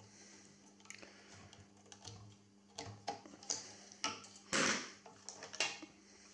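Irregular clicks, taps and scrapes of plastic and metal as a connector is worked with a screwdriver and a PDP-11/05 power-supply regulator module is pried and lifted from its metal case, with one louder scrape about four and a half seconds in, over a faint steady hum.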